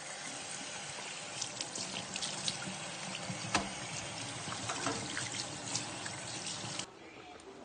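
Tap water running into a stainless steel sink as cleaned blue crabs are rinsed by hand, with scattered clicks of the shells knocking together. The water shuts off suddenly near the end.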